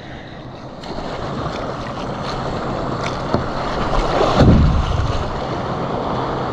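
Breaking surf and rushing water around a kayak, with wind on the microphone. The noise builds steadily, and a louder, deep rush comes about four and a half seconds in.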